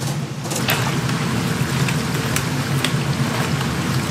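Chicken pieces deep-frying in a vat of hot oil: a dense, steady sizzle with a few sharp crackles, over a low steady rumble.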